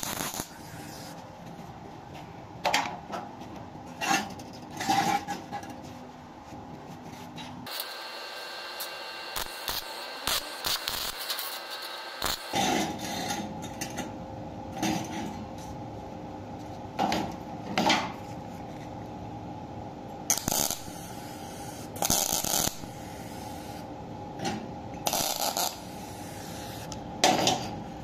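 Brief bursts of MIG tack welding and metallic clinks and scrapes of small steel parts on a steel welding table, over a steady hum.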